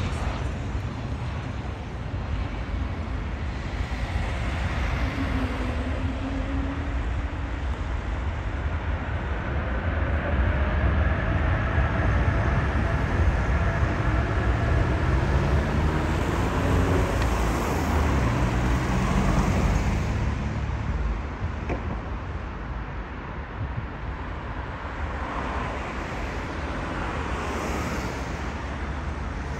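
Jet airliner passing low on its landing approach: engine rumble that swells to its loudest in the middle, with an engine whine that bends up and down in pitch as it goes by. Wind buffets the microphone.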